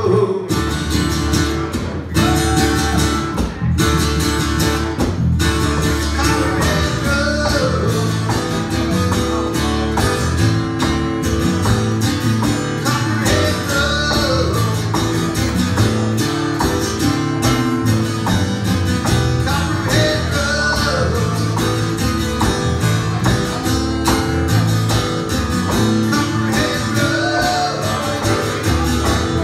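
Live band music led by strummed guitar: a steady strummed rhythm with a melodic line over it.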